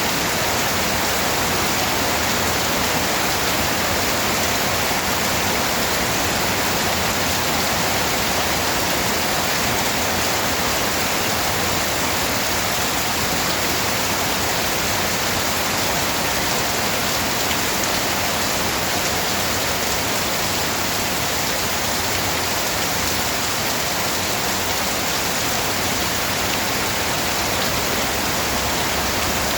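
Steady, even rain noise with no distinct drops or changes.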